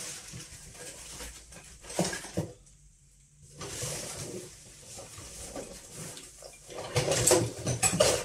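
Small clicks, snips and rustles of side cutters cutting the thread lacing on a radiometer's wire bundle. There is a brief quiet gap about three seconds in and louder handling noise near the end.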